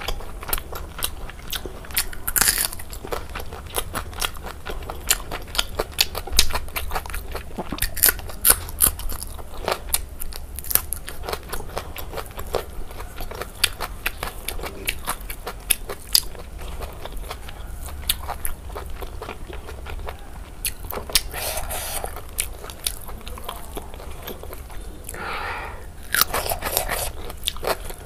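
Close-miked chewing of a handful of rice and pork belly curry, eaten with the fingers: a steady run of wet lip-smacks and sharp mouth clicks, with a few longer squelchy smears in the second half.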